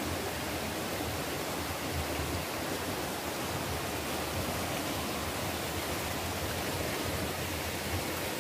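Rocky jungle stream running steadily over stones: a constant, even rush of water.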